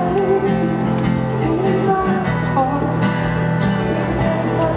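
A solo acoustic guitar song played live through a stage sound system, the guitar strummed and picked steadily with a melody line over it.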